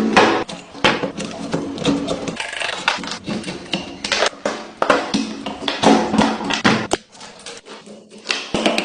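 Background music with pitched notes and percussive clicks, dropping quieter about seven seconds in.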